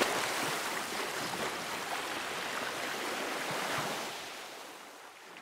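Rushing-water ambience, like surf or a stream, steady and then fading out over the last second or so.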